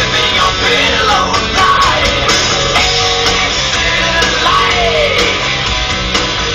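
Loud rock music with a singing voice and guitar.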